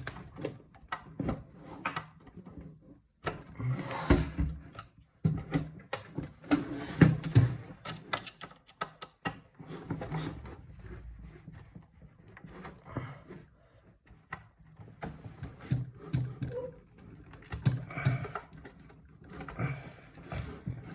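Irregular knocks, clicks and scraping as a computer power supply is worked loose and pulled out of a metal PC case, with a louder flurry of knocks about four and seven seconds in.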